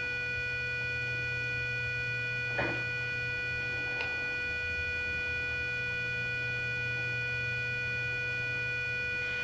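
Radar clock's alarm buzzer sounding one continuous steady tone with overtones, the alarm left running without snooze. Two faint clicks come about two and a half and four seconds in.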